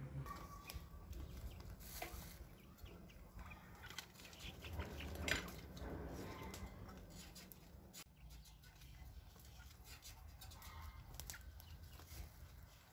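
Young chickens clucking quietly, with scattered short calls and light clicks as they move about.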